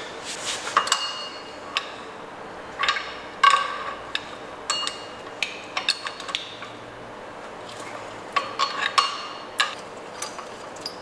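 Irregular metallic clicks and clinks from a ratchet ring spanner and a steel bar working the bolts of an engine's water pump pulley, as the pulley bolts are undone; some clinks ring briefly, with a quicker run of clicks near the end.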